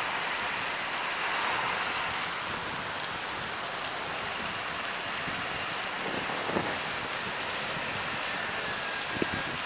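Steady rushing road noise from a moving bicycle on a city street: air rushing past the microphone, tyres on the pavement and nearby traffic, with two short knocks about two-thirds of the way in and near the end.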